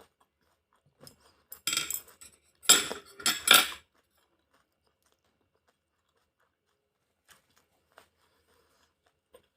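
Eating utensils scraping and clinking against a bowl of udon in two loud spells early on, then only a few faint clicks.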